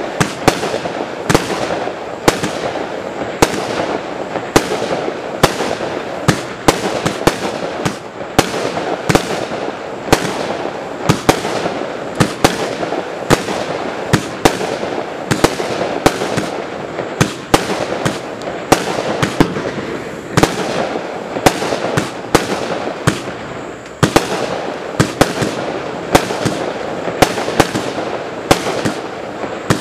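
Dark Gold Box consumer fireworks cake firing shot after shot: a steady run of sharp launch thumps and bursts, about two a second, over a constant rushing noise.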